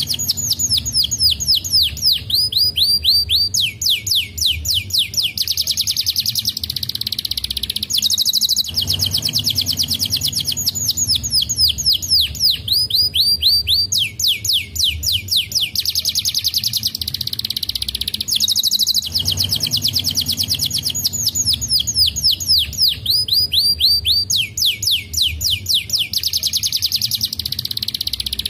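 Domestic canary singing long rolling trills, each a fast run of repeated down-sweeping notes that changes speed from one tour to the next. The song phrase repeats almost identically about every ten seconds.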